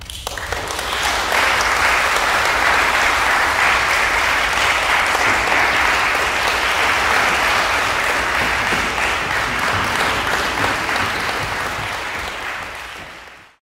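Audience applauding: it builds up over the first second, holds steady, then thins a little near the end and cuts off suddenly.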